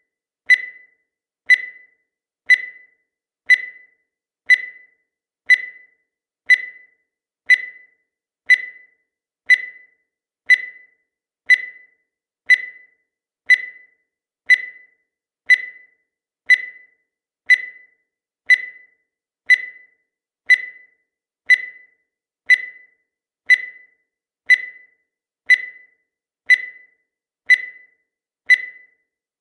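Countdown timer sound effect: a short, sharp tick once every second, steady and evenly spaced.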